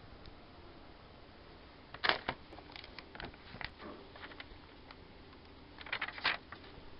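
Paper rustling and crackling as the pages of a thin booklet or magazine are handled and turned. There are two louder bursts, one about two seconds in and one near the end, with softer rustles between.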